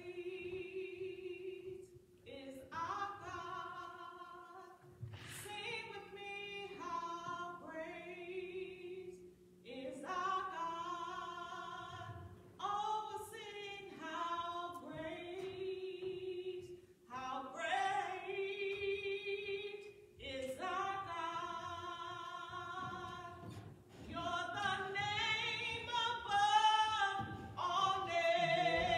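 A woman singing a gospel solo, in phrases of a few seconds each with wavering vibrato and short pauses between lines, over a faint steady low tone.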